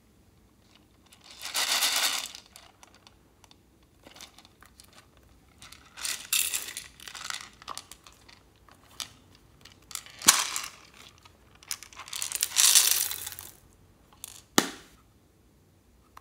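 Small plastic beads rattling and pouring out of a plastic pencil case into a glass dish, in three bursts of about a second each, with two sharp clicks in between.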